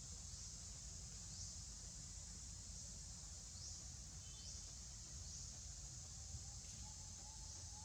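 Outdoor natural ambience: a steady high-pitched insect drone with a few short rising chirps, and from about six seconds in a string of short repeated bird calls.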